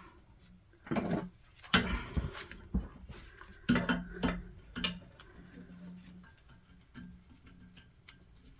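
Metal tools and parts clinking and knocking as they are handled: a cluster of sharp strikes about a second in, a longer rattle around two seconds, and more around four seconds, then a few lighter clicks.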